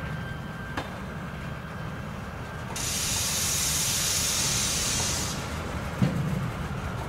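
A loud hiss of compressed air from a train's pneumatic system, starting abruptly about a third of the way in, lasting about two and a half seconds and cutting off sharply, over the train's steady low rumble. A dull thump follows near the end.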